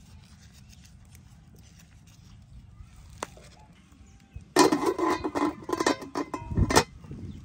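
Aluminium stockpot lid clattering and ringing as it is handled and set onto the pot: a quiet lead-in, then about two seconds of metallic knocks and rattles ending in one last clank.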